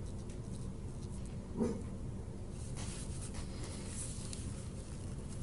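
Faint rustling and scratching of latex gloves and a paper gauze pad pressed against skin, over a steady low hum, with a brief vocal murmur about a second and a half in.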